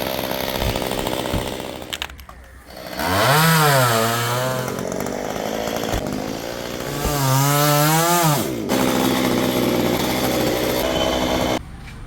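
Chainsaw cutting into a coconut tree trunk, its engine revving up and down in long swells of rising and falling pitch. It drops back and goes quieter about two seconds in and again near the end.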